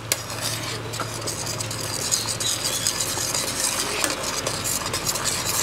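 A metal ladle stirring and scraping around a metal saucepan of sweet and sour sauce as it is thickened with cornstarch, with a steady hiss beneath.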